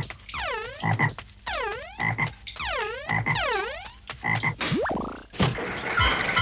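Cartoon frog croaking sound effect: a rapid series of warbling croaks, about two a second, each dipping and then rising in pitch. Near the end the croaks stop, a quick rising whistle and a sharp clatter follow, and music with a steady beat starts.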